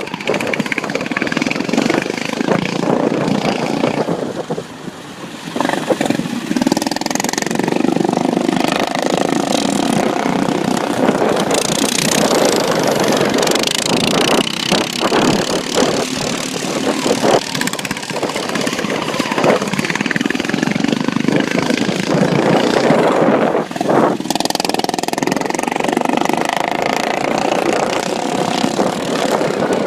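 Stock-class racing lawn mower engines running hard, rising and falling in pitch as the machines go round the track, with a quieter spell about four seconds in.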